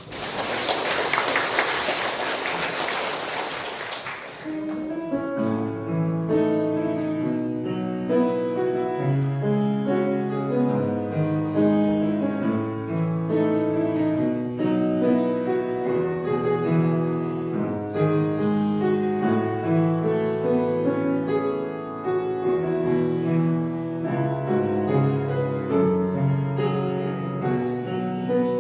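A loud rush of noise for about the first four seconds, then a piano playing a steady chordal accompaniment with a moving bass line.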